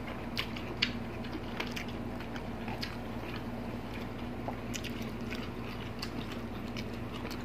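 Close-miked mouth sounds of eating with the hands: chewing with scattered soft wet clicks and smacks. A steady low hum runs underneath.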